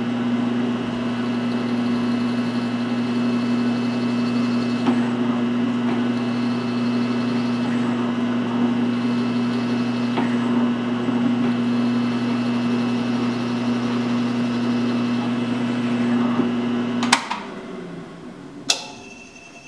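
Drill press motor running with a steady hum while holes are bored into short pieces of 2x4, the bit now and then cutting into the wood. About 17 seconds in it is switched off with a click and winds down.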